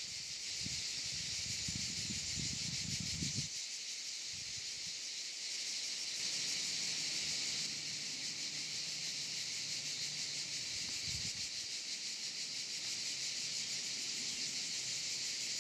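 Steady, high-pitched chorus of insects shrilling in the summer heat, with a faint low rumble in the first few seconds.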